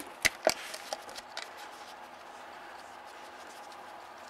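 Three sharp knocks from the camera being handled in the first half second, then a faint steady hum of room tone.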